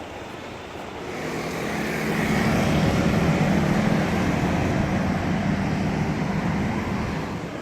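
A motor vehicle passing on the road: a steady rushing engine and tyre noise that swells about a second in, holds for a few seconds, then eases off near the end.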